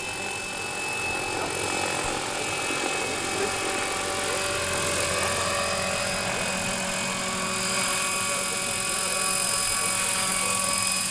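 Radio-controlled scale Bell 212 model helicopter in flight: a steady whine from its drive over the rotor noise, growing gradually louder.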